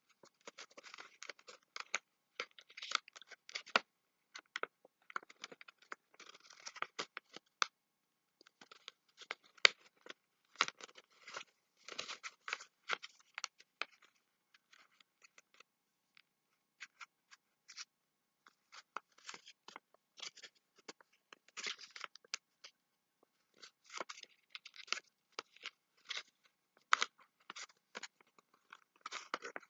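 Paper being folded and creased by hand into an origami box: irregular crinkling and rustling with sharp crackles, coming in clusters with short pauses between.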